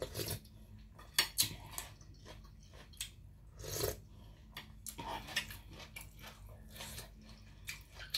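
Eating sounds: a metal spoon clicking against a plate and the mouth noises of eating blanched squid in spicy dipping sauce, a string of short clicks and smacks.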